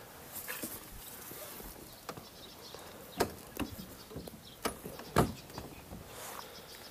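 Irregular sharp knocks and clicks over faint rustling, the loudest two about three and five seconds in.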